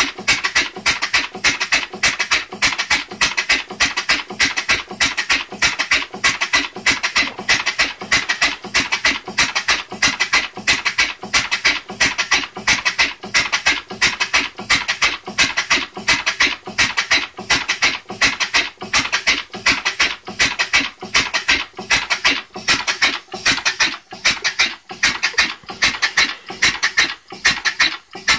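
Briggs & Stratton single-cylinder engine converted to a steam engine, running on compressed air: a steady, quick rhythm of hissing exhaust puffs, one with each stroke.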